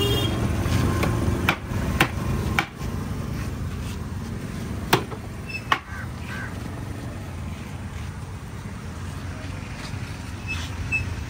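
Roadside ambience: a low traffic rumble that drops away after a few seconds, with five sharp knocks spread over the first six seconds, then a steadier, quieter background with a few faint taps near the end.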